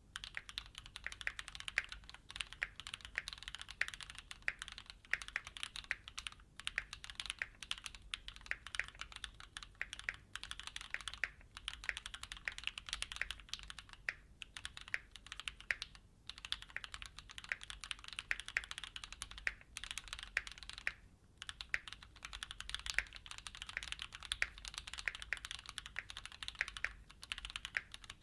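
Continuous fast typing on a Keychron Q6 mechanical keyboard: a dense run of key clicks, broken by a few brief pauses.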